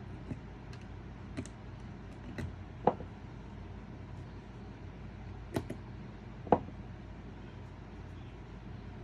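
Scattered sharp clicks and knocks, two louder than the rest, from hand work on a VW Type 2 bus's metal vent window frame as a new rubber seal is worked into its channel. A steady low hum runs underneath.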